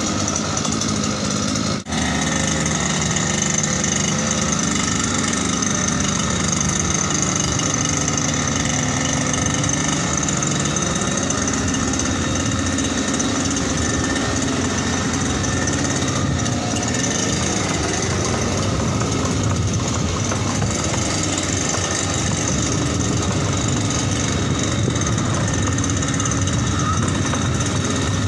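Small 52 cc two-stroke brush-cutter engine driving a motorized bicycle, running steadily under way, its pitch rising and falling a little. The sound drops out for an instant about two seconds in.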